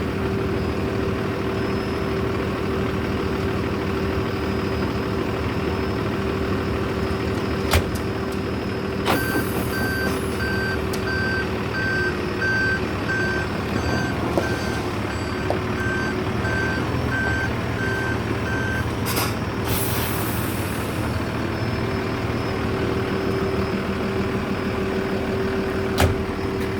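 A concrete mixer truck's engine running steadily. For about ten seconds in the middle its reversing alarm beeps at an even pace while the truck backs up, with a burst of air-brake hiss as the beeping starts and another as it stops. A couple of single knocks can be heard.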